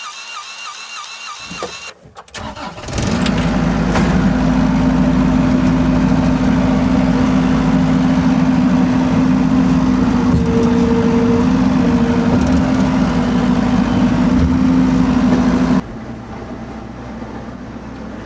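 Diesel engine of a compact machine starting up and then running steadily, with a brief higher tone about ten seconds in. The engine cuts out abruptly near the end.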